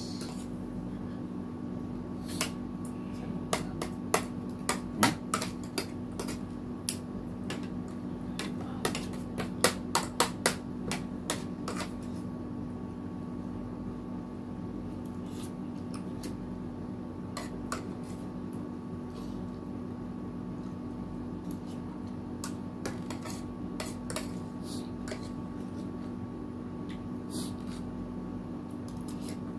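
Forks and spoons clinking and scraping against ceramic plates and a soup bowl during a meal. The clinks come quickly for the first dozen seconds, then more sparsely, over a steady low hum.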